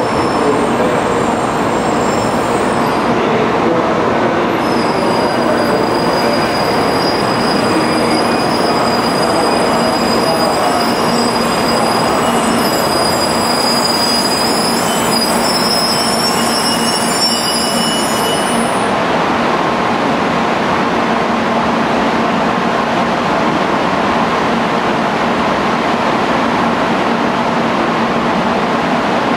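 N700 series Shinkansen trains at a station platform: steady, loud running and rolling noise, with a thin high whine over it until about two-thirds of the way through, when the sound changes.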